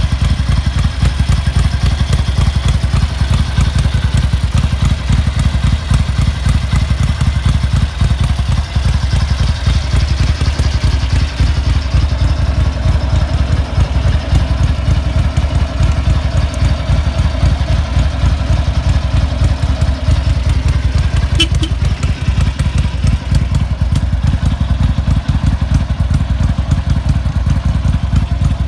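Ducati 900 MHR bevel-drive V-twin engine running steadily at idle, its exhaust note coming through round Conti silencers.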